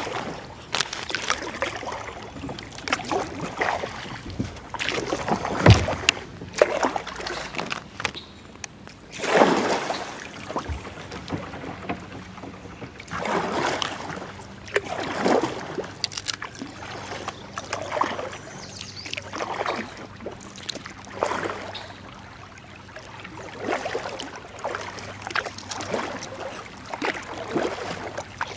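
Kayak paddle strokes dipping and splashing in calm river water, a stroke every second or two with occasional pauses.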